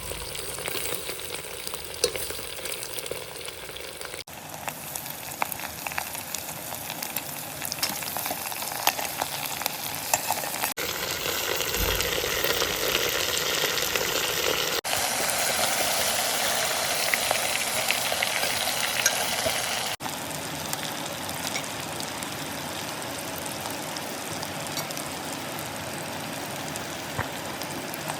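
Food sizzling and crackling in a hot pan, with scattered clicks of a utensil as it is stirred; the sound jumps abruptly a few times.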